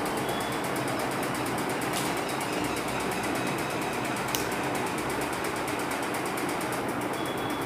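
Steady mechanical whirring hum and hiss with a fast, even ticking texture, like a running fan, with two faint clicks about two and four seconds in.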